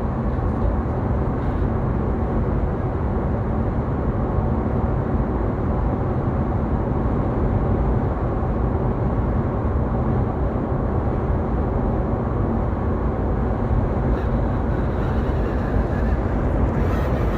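Steady road and wind noise inside a moving Tesla Model S 85, with a faint high whine from the sunroof.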